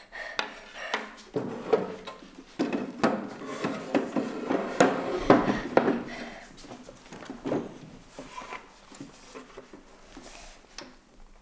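Irregular clatter of dishes and small objects handled on a table: a run of knocks and clinks, busiest in the first half and thinning out toward the end.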